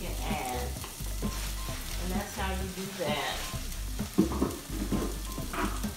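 Onion and mixed vegetables frying in a nonstick skillet, a steady sizzle, with a sharp knock about four seconds in.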